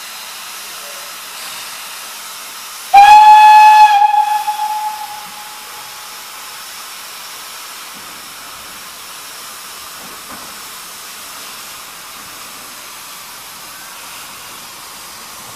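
1918 Henschel 0-4-0 narrow-gauge tank locomotive's steam whistle, giving one loud departure blast about three seconds in. The blast holds for about a second and then fades, over a steady hiss of escaping steam.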